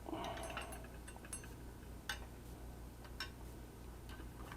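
Faint, scattered metallic clicks and light taps from small parts being handled: wire lugs and screws on a fuel pump bracket. A few ticks come in the first second and a half, then single clicks about two and three seconds in, over a steady low hum.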